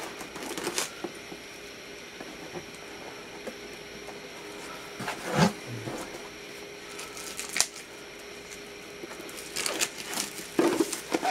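Rustling and light taps of a shrink-wrapped record box being handled as its plastic wrap is worked loose, with one dull thump about five seconds in and busier rustling of the plastic near the end.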